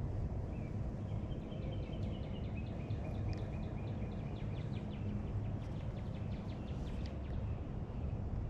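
Wind rumbling on the microphone, with a bird singing a long run of short, rapidly repeated high chirps over it.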